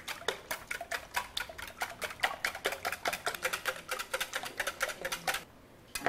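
Six eggs and evaporated milk being beaten with a whisk in a bowl: fast, even clicking of the whisk against the bowl, about seven strokes a second, stopping about five seconds in.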